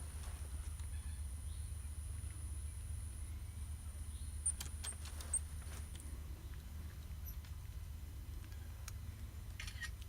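A steady low hum, with a few sharp clicks or taps about halfway through and again near the end, and a thin high steady tone that stops about six seconds in.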